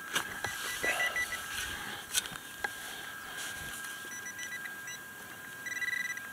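Metal-detecting pinpointer beeping in short runs of rapid high beeps, speeding into a near-continuous buzz near the end, the sign that the target is still in the hole. A few sharp knocks and scrapes from digging come in between, over a faint steady high tone.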